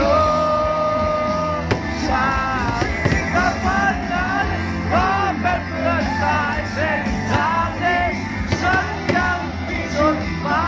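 Loud music with singing: a held sung note for the first couple of seconds, then a quick, bending vocal line over a steady bass.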